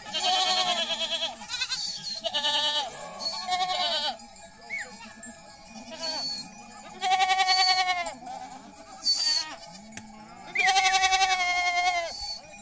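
A flock of sheep bleating: about five long, quavering calls in a row, some overlapping. A small bell rings briefly a few times between them.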